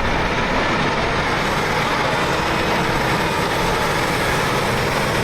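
Heavy diesel equipment, such as the backhoe and crane working the tank hole, running steadily as a dense, even mechanical noise.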